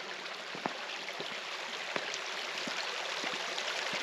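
Creek water running and rippling, a steady rushing wash with a few small splashes.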